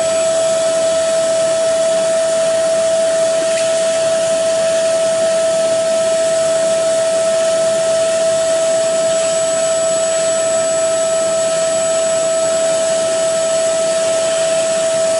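Carpet shampooer running steadily, its motor giving one constant whine over the hiss of suction through the hose and hand tool.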